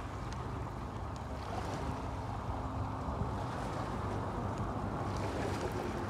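Boat motor running steadily with a low hum, over a rush of water and wind.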